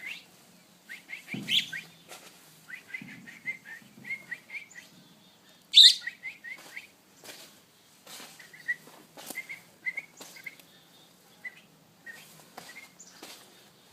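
A fledgling bird peeping in short, high chirps that come in quick runs, with pauses between. Scattered sharp clicks or taps come in among them, the loudest about six seconds in.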